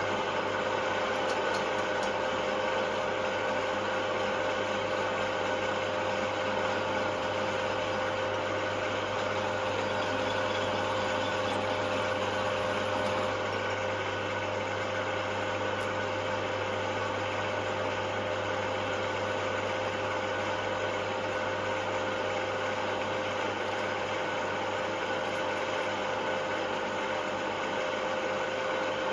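Radial arm drill running steadily, its motor and gearbox giving a constant whine over a low hum, as the bit drills a retaining-bolt hole through the thick steel of an excavator bracket.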